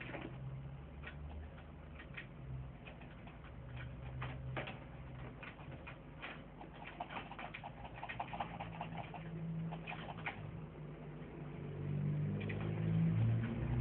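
Irregular faint clicks and ticks over a low hum, with a louder low rumble building near the end.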